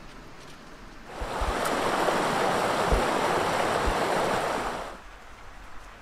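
Rushing creek water, a loud, even rush that cuts in about a second in and cuts out near five seconds, over quieter background ambience.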